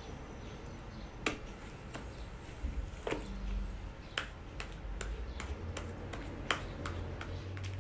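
Homemade foam slime, made with shaving cream and glue, being stretched and squeezed by hand, giving sharp pops and clicks at irregular intervals, about a dozen in all.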